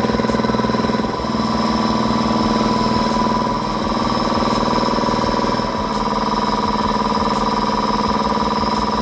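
60-gallon electric air compressor's pump running steadily under load as it fills the tank, with an even rhythm from the pump strokes and steady whining tones. The tone shifts slightly about a second in and again near six seconds.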